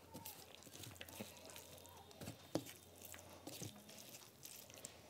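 Fingers squishing and mixing rice with curry on a plate: faint wet squelches and small clicks, with one sharper click about halfway through.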